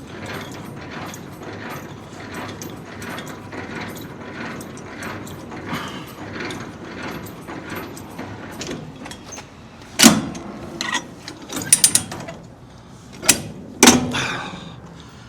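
A hand-worked ratcheting mechanism clicking steadily, about two to three clicks a second, then several loud metal clanks in the last few seconds.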